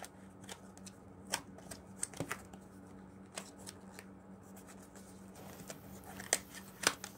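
A paper sleeve sliding and rubbing against a small cardboard box as it is worked off by hand, with scattered light clicks and taps of the card, the two sharpest near the end. A faint steady low hum runs underneath.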